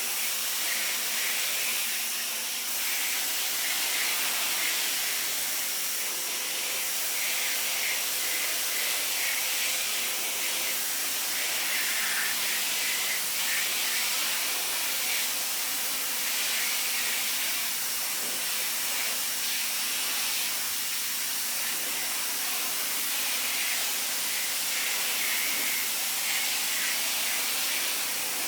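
Sun Joe SPX3000-QW2 electric pressure washer spraying: a steady hiss of the high-pressure water jet striking a surface, with a faint steady hum underneath.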